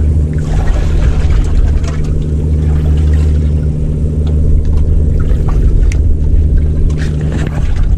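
A boat engine running steadily, with a few sharp clicks and knocks over it.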